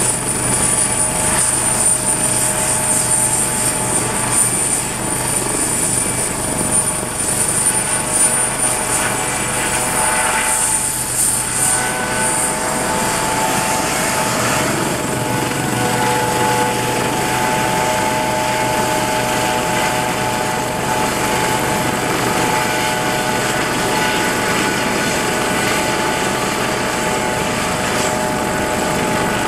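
US Coast Guard HH-65 Dolphin helicopter running on the ground with its main rotor turning: a steady turbine whine from its twin turboshaft engines, with several held tones over the rotor noise. About ten seconds in the highest whine fades and the lower tones shift as the helicopter turns on the ramp.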